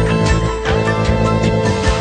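Background music with sustained melodic notes over a steady drum beat.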